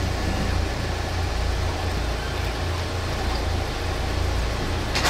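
Fiat Barchetta roadsters' four-cylinder engines idling in a queue, a steady low rumble with no clear changes.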